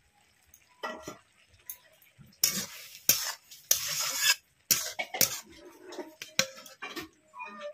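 Metal spatula scraping and knocking against a metal kadai while stirring boiled chopped banana flower in water, in a series of scrapes that are loudest and longest in the middle.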